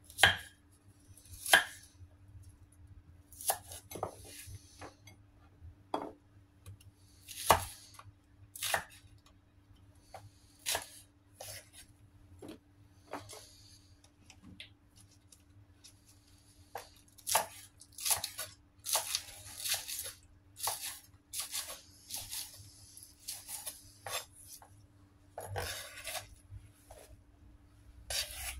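Kitchen knife cutting shallots on a thick wooden chopping block: irregular knocks of the blade against the board, a few loud single cuts in the first half and a quicker run of chops about two-thirds of the way through. A faint steady hum lies under it.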